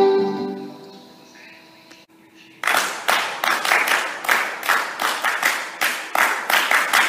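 The last sung note of a song fades out in the first second. About two and a half seconds in, a group of students starts clapping together in a quick, steady rhythm, roughly four claps a second, stopping just before the end.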